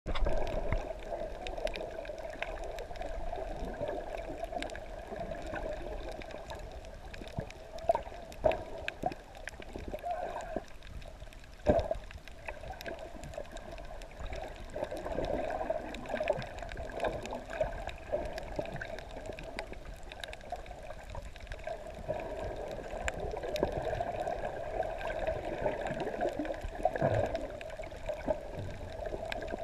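Water heard from underwater: muffled, steady sloshing and gurgling, with a few sharp knocks, the loudest about twelve seconds in.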